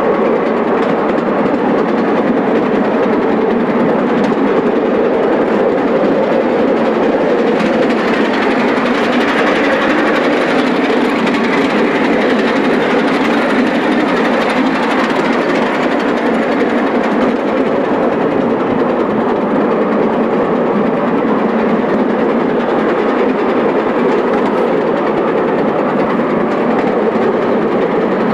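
Miniature railway train running along a raised model-engineering track, heard from aboard: the steady running noise of its wheels on the rails.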